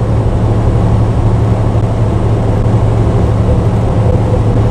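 Steady drone of a semi truck's diesel engine and road noise heard inside the cab while driving, with a strong low hum.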